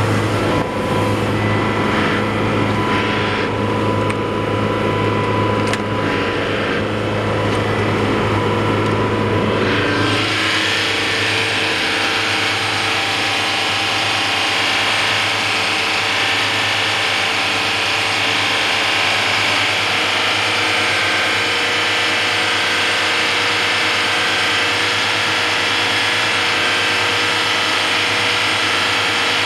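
Yanmar marine diesel engine running steadily. First it is a deep hum heard through the boat. About ten seconds in, the deep hum drops away and the engine is heard close up in its open compartment as a busy mechanical clatter.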